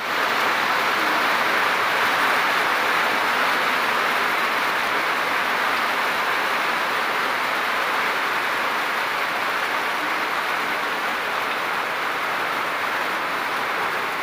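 Heavy rain pouring down steadily, a dense even hiss without breaks.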